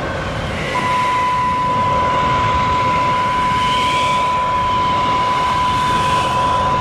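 Loud, steady rush of tornado wind noise. A single steady high-pitched tone comes in about a second in and holds unbroken over it.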